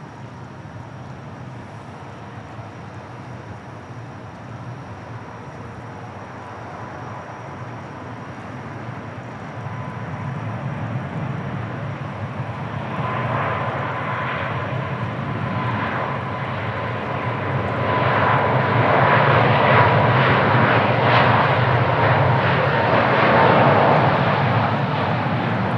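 Jet airliner's engines, a roar that builds steadily as the aircraft draws near, loudest about three quarters of the way in and easing slightly near the end.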